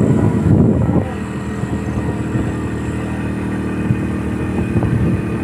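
Motorcycle engine running steadily while riding, its hum holding an even pitch. Wind buffets the microphone for about the first second.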